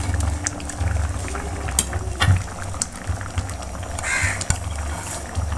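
Thick lentil and egg dal bubbling at a simmer in a pan, with scattered pops of bursting bubbles over a low rumble. One short harsher call sounds briefly about four seconds in.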